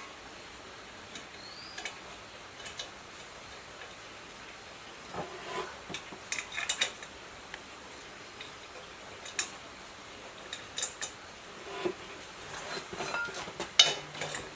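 Scattered light clinks and knocks of small hard objects over a faint steady hiss, busiest about a third of the way in and again near the end.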